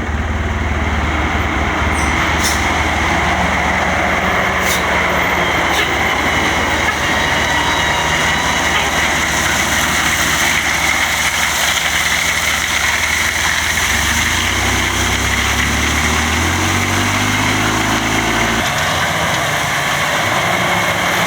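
Heavy diesel engine of earthmoving equipment running steadily under load, its note stepping up and down in pitch in the last few seconds.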